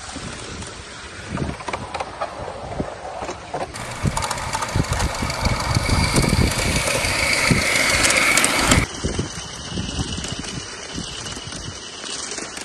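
Miniature live-steam locomotive working, with steam hissing over short low thumps. There is a louder, hissier stretch in the middle that cuts off abruptly.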